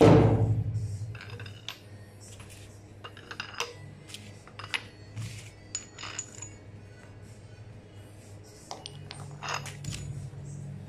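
A loud metallic clang at the start that rings out over about a second, then a run of small, sharp metal clinks and taps as steel parts of a bushing press (washers, nuts, threaded rod) are handled and set in place.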